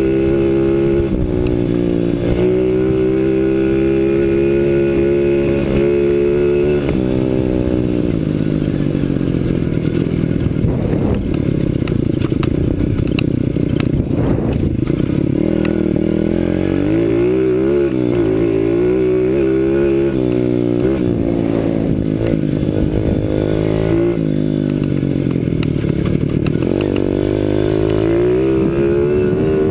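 CRZ 125 Pro pit bike's single-cylinder engine under riding load, revving up and dropping back again and again as the throttle is opened and shut. Through the second half the revs swing up and down quickly and often.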